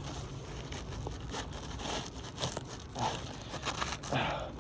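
Asphalt roof shingles scraping and crackling as they are lifted and worked by hand, with a few sharper cracks scattered irregularly.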